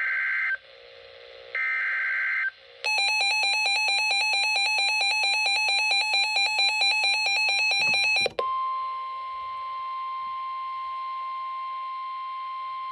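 Emergency Alert System weather alert. It opens with two short bursts of warbling SAME header data, then about five and a half seconds of rapid electronic alarm beeping. After that comes a steady single-pitch warning tone, the NOAA Weather Radio 1050 Hz alert tone, which marks a warning message about to be read.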